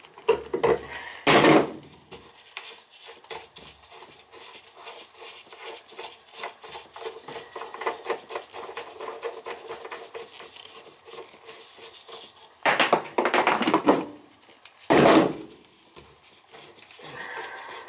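Gloved hand scrubbing and rubbing the deck of a laundry tub where the old faucet was removed: a steady scratchy rubbing, broken by loud clattering knocks about a second and a half in and twice near the end.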